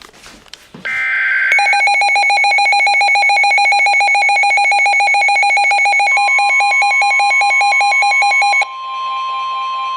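Emergency Alert System alert signal: a brief electronic tone burst about a second in, then a loud, rapidly pulsing electronic tone. A steady tone joins about six seconds in, and the pulsing stops shortly before the end, leaving the steady tone.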